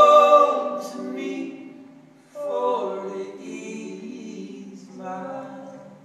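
A few voices singing slow, held notes in close harmony, with little or no instrument heard. There are three phrases: the first and loudest dies away over about two seconds, the next comes in about two seconds later, and a softer one follows near the end.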